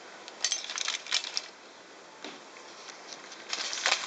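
Aluminium foil wrapped round a grilled fish crinkling and rustling in short bursts as it is handled, from about half a second in to a second and a half, and again more steadily near the end.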